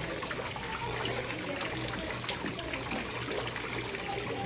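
Water trickling steadily from an ornate stone wall fountain's spout into its stone basin.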